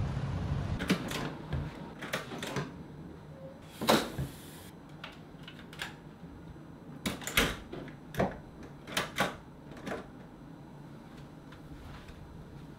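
A string of sharp clicks and knocks, often in pairs, over about ten seconds: a hotel room door's handle and latch working, and bottles and a shopping bag being handled.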